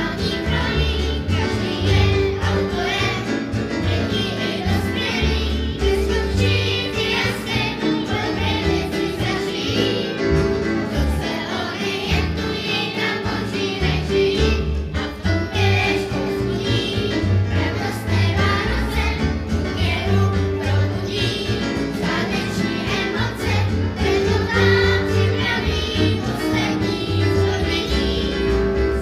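A choir of children singing a song together, accompanied by an electric keyboard.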